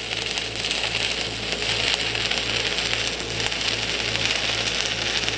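Stick-welding arc of a 3/32-inch 309L-16 stainless electrode on DCEP at 80 amps, burning steadily with a continuous crackling sizzle. A low electrical hum runs under it.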